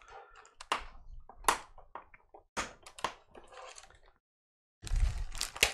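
Sharp clicks and taps of 3D-printed plastic toolbox parts being handled, snapped and set down on a wooden tabletop. After a brief cut to silence, there is louder handling noise with low thuds near the end.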